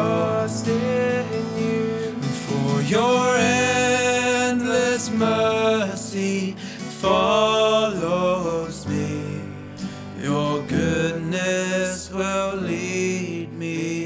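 Worship song played on acoustic guitar and keyboard, with a man's voice singing the melody at times.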